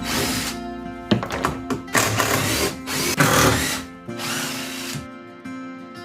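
A cordless power driver runs in about five short bursts, each half a second to a second long, over background music.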